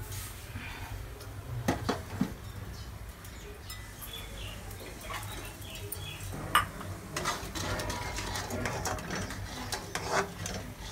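Steel utensils clinking and scraping: a steel scoop knocking against a steel plate of sesame seeds, then clicking and scraping from about two-thirds of the way in as a spoon stirs in an iron kadai.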